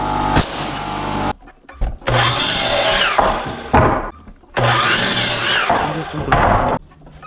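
A power tool running with a steady hum, stopping about a second in, then run again in short bursts of about a second each, twice, with a third starting at the very end.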